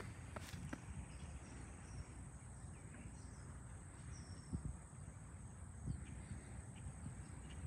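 Faint background noise with a steady high-pitched trill or whine and a few light, faint clicks. No engine start is heard.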